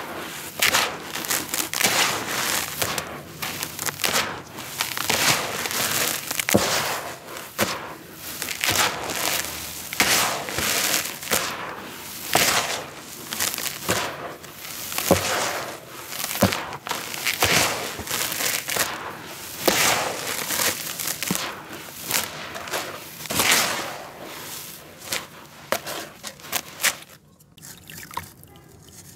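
Hands raking and scooping through dry, grainy red dirt in a plastic tub: a run of gritty crunching, rustling strokes about once a second, dying away near the end.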